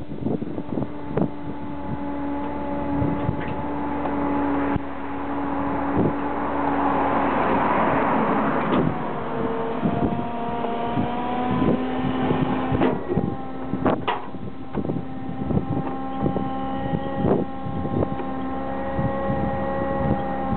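A steady droning engine hum whose pitch shifts slightly twice, with a vehicle swelling past about seven seconds in and wind buffeting the microphone in short thumps.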